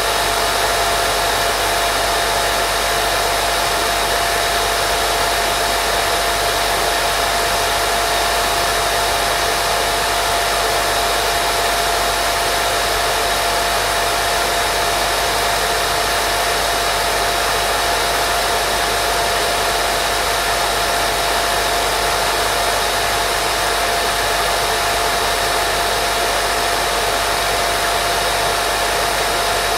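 Steady, unchanging white noise for baby sleep, with a thin constant tone running through it.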